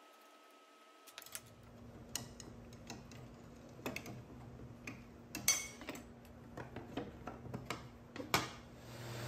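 Scattered light clicks and knocks, a second or more apart, of the blades and chippers of a stacked dado head cutter being handled and fitted onto a table saw, over a faint low hum that comes in about a second in.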